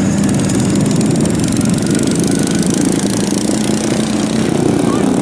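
Engines of several ride-on racing lawn mowers running together, a steady, dense engine sound.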